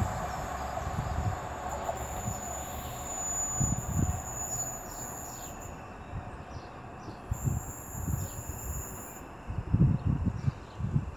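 Departing Class 172 Turbostar diesel multiple units running away into the distance, their engine note fading out within about two seconds. Wind buffets the microphone in low gusts throughout, and a bird chirps repeatedly in the background.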